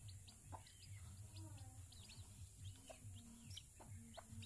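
Chickens heard faintly: many short, high chirps, typical of chicks peeping, repeat all through, with a few lower clucks among them.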